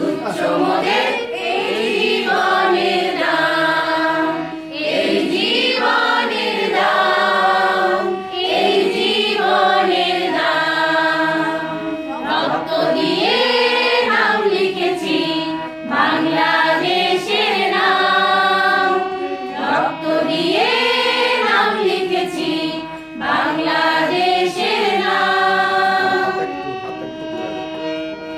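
A group of women and men singing a Bengali patriotic song together as a choir, phrase after phrase with short breaths between.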